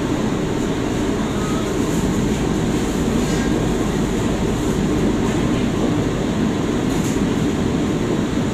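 Steady loud roar of a commercial kitchen's gas wok burners and extraction hoods running, with a few faint clinks from the woks.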